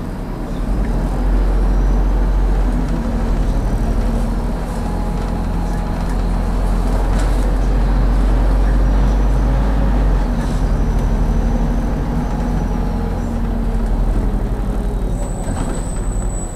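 City bus's diesel engine pulling and driving along, heard from inside the bus: a heavy low rumble with road and tyre noise. It grows louder about a second in and eases off near the end.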